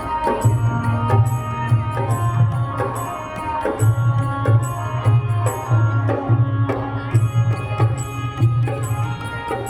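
Live band playing at a sound check: drums keep a steady beat under held melodic notes, with no singing.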